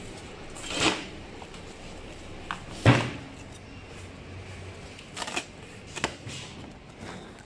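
Handling knocks from a spool of stainless-steel welding wire being fetched and handled: four short knocks, the loudest a thump about three seconds in.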